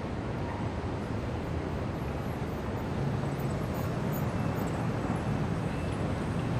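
Indian city street traffic: a steady wash of passing cars, motorbikes and auto-rickshaws. A low engine hum grows a little louder about halfway through as a vehicle comes closer.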